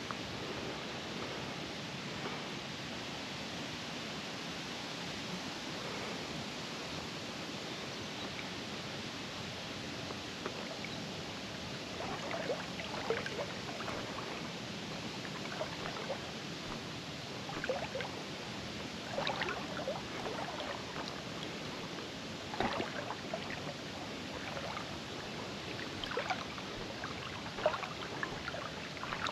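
Steady rush of flowing river water, with repeated short sloshes and splashes of water from about halfway through.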